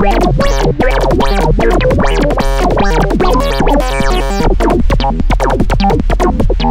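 Electronic synthesizer music: a fast run of short pitched notes with sharp clicking hits over a steady low bass tone.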